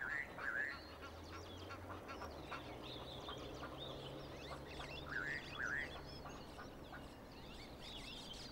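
Birds at dawn: a loud two-note rising call at the start and again about five seconds in, over many small chirps and a low steady hum.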